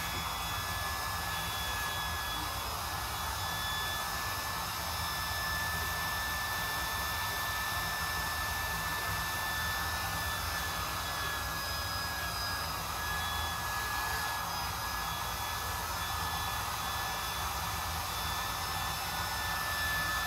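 Small portable electric air pump running steadily with a high whine, inflating a chamber of an inflatable kayak.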